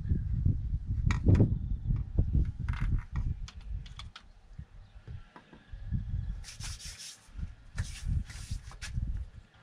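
Handling noise: a plastic hose rubbing and scraping as it is pushed into a manual gearbox's fill hole, with low knocks through the first half. A few short scratchy rustles come in the second half.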